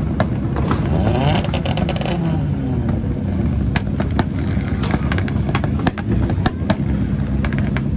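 Rally car engines idling and being blipped, with revs rising and falling about a second in, and frequent sharp cracks from the exhausts.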